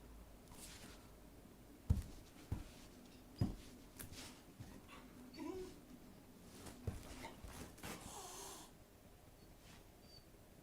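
A dog's breathing and movement noises, with three dull knocks in the first three and a half seconds and a short rushing breath near the end.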